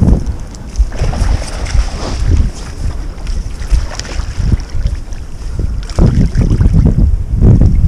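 Wind buffeting the microphone in gusts: a loud, uneven low rumble that eases for a few seconds and swells again near the end.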